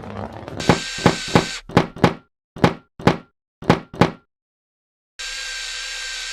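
A run of about nine sharp knocks and thuds, irregularly spaced over about three seconds, over a steady hiss that cuts off. The steady hiss starts again about five seconds in.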